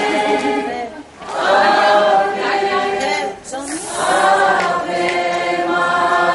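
A crowd of voices singing a religious hymn together in long sung phrases, with short pauses for breath about a second in and about halfway through.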